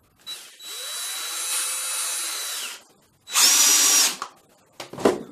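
Cordless combi drill fitted with a screwdriver bit, driving a screw into a block of wood. The motor whine rises as it starts and runs for about two and a half seconds, then a shorter, louder second run follows, with a brief knock near the end.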